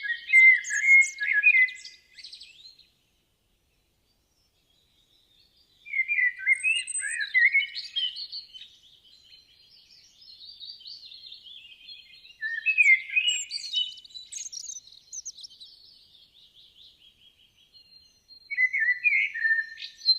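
A small songbird singing rapid, varied phrases of chirps and warbles. The song comes in three bouts: a short first bout, then a few seconds of silence, then a long second bout and a short final one.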